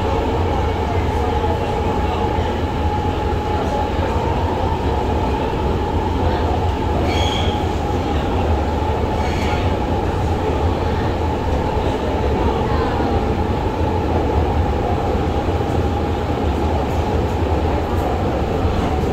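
Xiamen Metro Line 3 train running at steady speed, heard inside the passenger car: a loud, even rumble of wheels on rail with a steady whine, and two brief high squeals about seven and nine and a half seconds in.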